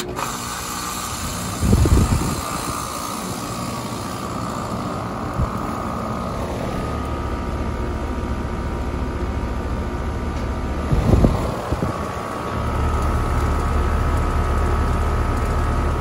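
Rheem Classic 14 heat pump outdoor unit during a defrost cycle, cutting in suddenly with a loud, steady rush and a whine that sags slightly in pitch about five seconds in, then holds. Two dull bumps come about two seconds and eleven seconds in.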